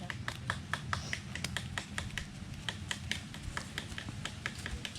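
A rapid, irregular series of light clicks and taps, several a second, over a steady low rumble.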